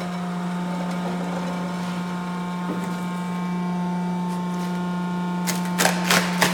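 Herman Schwabe die-cutting press humming steadily while it runs. Near the end come several sharp rattles as the die-cut plastic sheet is pulled out of the press.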